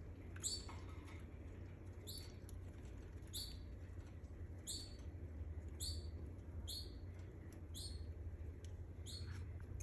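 Domestic canary giving short, high chirping call notes, about one a second, each a quick downward sweep, over a steady low hum.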